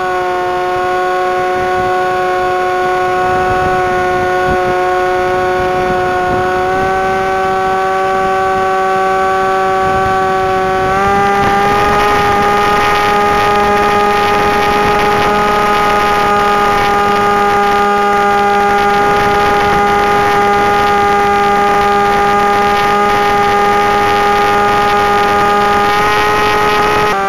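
Electric motor and propeller of an AXN Floater foam plane whining in flight, heard from its onboard camera with rushing air. The steady pitch steps up slightly about seven seconds in, rises and gets louder about eleven seconds in as the throttle is opened, and drops back near the end.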